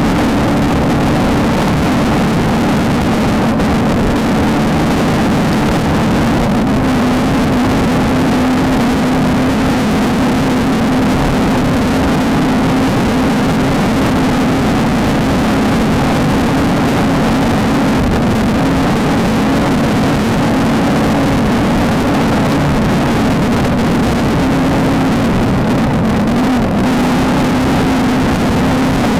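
Off-road race car's engine running hard at nearly constant revs, with a steady drone and the din of the drive over it. The pitch barely changes throughout.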